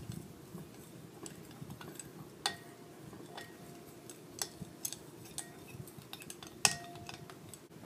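Metal spoon stirring a liquid glue-and-water slime mixture in a clear bowl, scraping steadily, with a few sharper clinks against the bowl that ring briefly.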